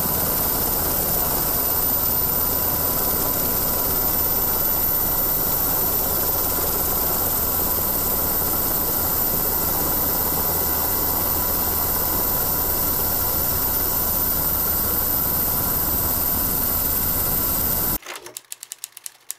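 UH-60 Black Hawk helicopter noise heard from aboard: a steady drone of engines and rotors with a faint steady whine. About eighteen seconds in it cuts off abruptly and gives way to a quick run of sharp clicks.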